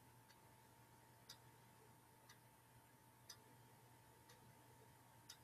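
Near silence with a faint clock ticking steadily, once a second, over a low steady hum.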